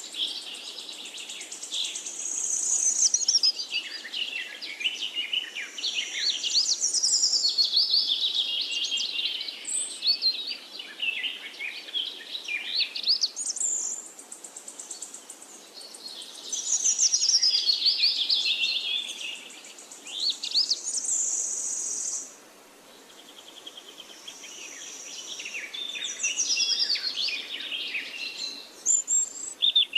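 Several songbirds singing and chirping at once in a forest chorus, rapid warbling and trilling phrases that overlap and come and go, over a steady hiss of insects. The chorus thins out for a couple of seconds about three quarters of the way through.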